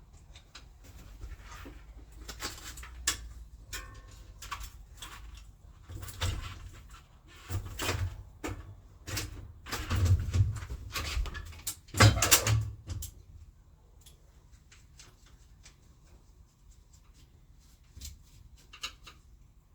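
Workshop handling noises: a string of clicks, knocks and clunks as bike parts are picked up and set down, busiest for the first thirteen seconds, then a few light clicks.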